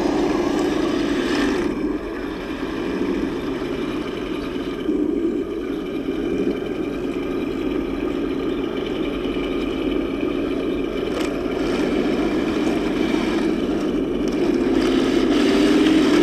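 Henglong RC M41A3 Walker Bulldog tank's simulated engine sound from its onboard speaker, a steady engine drone as the tank is driven, a little louder near the end.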